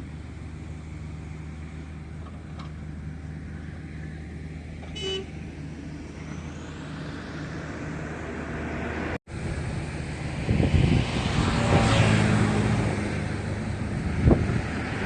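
Excavator's diesel engine running steadily, with a short horn-like beep about five seconds in. After a brief cut at about nine seconds it is louder, working under load, with a couple of sharp clanks.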